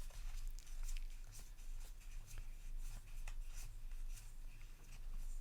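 Soft rustling and light clicks of trading cards and booster-pack wrapping being handled, over a steady low room hum.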